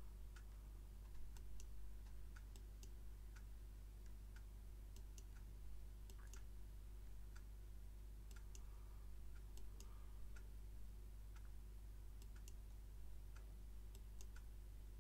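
Faint computer mouse clicks, irregular and a few a second, some in quick pairs, over a low steady electrical hum.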